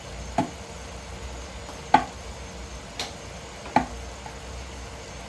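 Adobo of chicken feet and livers simmering in a wok: a low steady sizzle of bubbling sauce, with four sharp pops spread through it.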